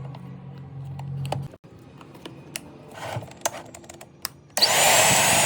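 A low hum stops after about a second and a half and a few clicks and knocks follow; then, near the end, a mixer grinder's motor switches on abruptly and runs at full speed with a loud rush and a high whine, the reassembled motor with its new armature under test.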